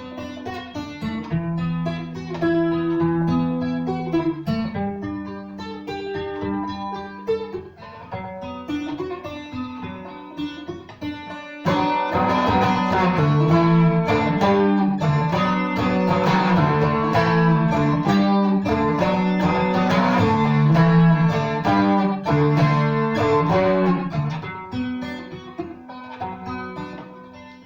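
Seagull Merlin M4, a four-string mountain-dulcimer-style instrument, played solo: a picked melody over a low drone. About twelve seconds in it suddenly gets louder and fuller, with strummed chords, and it softens again near the end.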